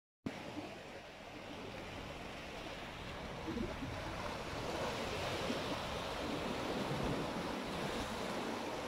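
Sea surf washing against rocky shore ledges: a steady rushing noise that builds gradually.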